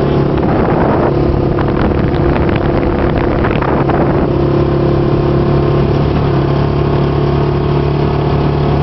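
Yamaha Rhino 660's single-cylinder engine running at a steady pace as the side-by-side rolls along, heard from the driver's seat. For about the first four seconds a rattling noise rides over the engine.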